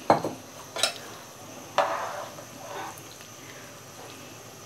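A steel ladle stirring a thin curry in a pan. There are two light knocks of metal on the pan near the start, then a short scraping swish of the ladle through the liquid about two seconds in.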